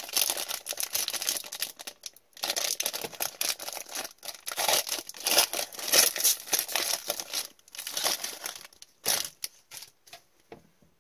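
Plastic wrapper of a hockey card pack being torn open and crinkled by hand, a dense crackling that stops briefly twice and thins to a few light clicks near the end.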